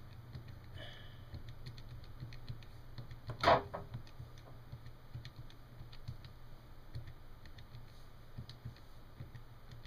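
Plastic keys of a Casio scientific calculator being pressed: faint, quick, irregular clicks as a string of decimal numbers is entered for a sum. One louder brief noise comes about three and a half seconds in, over a low steady hum.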